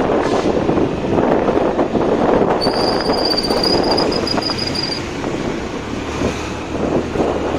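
Wind rushing over the microphone with road noise while riding a motorcycle. A high, steady whistle-like squeal sounds for about two seconds in the middle.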